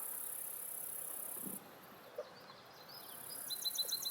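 A steady high-pitched insect drone that stops abruptly about one and a half seconds in and comes back about three seconds in, followed near the end by a quick run of about seven short, high bird notes.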